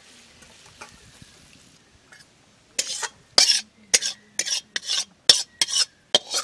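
A flat metal spatula scraping the last of a thick curry out of a metal wok (kadai) into a steel plate. About three seconds in, a run of about eight short, rasping scrapes begins, roughly two a second.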